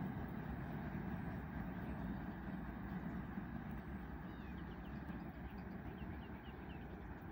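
Low rumble of a long freight train rolling away along the track, fading slowly. A small bird chirps a quick series of short notes in the second half.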